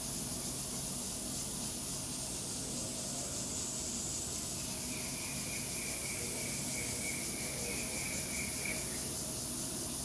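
Steady outdoor insect drone, high and even, with a second thin, high insect trill from about five seconds in until about nine.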